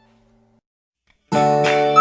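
Background music: the tail of a held note fades out into silence, then music led by a plucked guitar starts abruptly a little over a second in.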